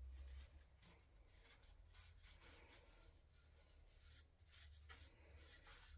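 Near silence: low room hum with a few faint soft scrapes and ticks of handling.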